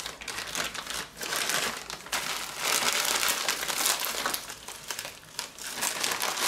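Plastic freezer bag of frozen Brussels sprouts and chestnuts crinkling and rustling as it is handled and squeezed to shake sprouts out.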